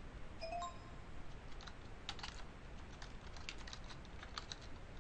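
Typing on a computer keyboard: quick irregular runs of key clicks as a short name is typed. A brief tone sounds about half a second in.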